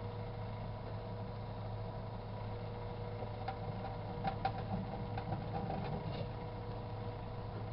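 Microwave oven running with a steady hum, and a cluster of sharp pops and crackles in the middle as the yogurt heating in its sealed container spatters.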